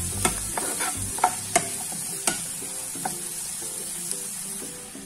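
Vegetables sizzling in a nonstick frying pan while a steel spoon stirs them, with several sharp clicks of the spoon against the pan in the first three seconds, then steady sizzling.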